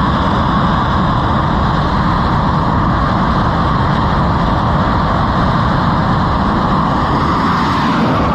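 Steady, loud jet engine noise from an F/A-18 Hornet fighter's twin engines at high power on an aircraft carrier's catapult.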